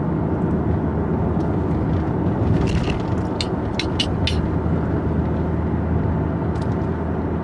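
Steady engine and road rumble inside a moving car's cabin, with a few light clicks about halfway through.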